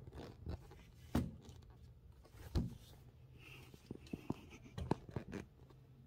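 Scattered sharp clicks and knocks with pauses between them: two louder knocks about one and two and a half seconds in, then a quick run of clicks about four to five and a half seconds in.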